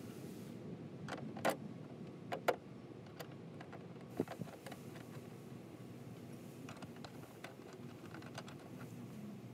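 A few sharp clicks and light taps from hand work at the hood hinge while a steel hood-strut bracket is fitted. The two loudest clicks come about a second and a half and two and a half seconds in, over a steady low background hum.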